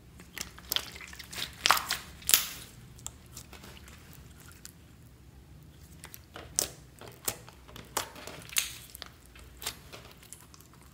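A large mound of glossy glitter slime being kneaded and pressed by hand, making wet squishes and sharp popping clicks. The clicks come in two irregular flurries, one in the first couple of seconds and another from about six seconds on, with a quieter stretch between.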